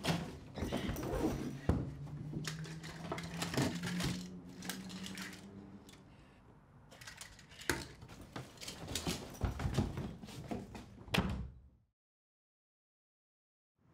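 Plastic toy robot figures knocking and clattering together in a child's hands, a run of sharp knocks with a low hum under them for a few seconds. The sound cuts to silence about two seconds before the end.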